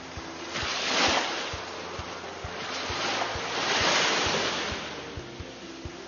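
Ocean surf sound effect: waves wash in two slow swells, one about a second in and a longer one around four seconds.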